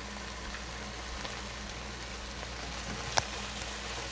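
Onions, tomatoes and spices sizzling steadily in a frying pan, with one sharp click about three seconds in.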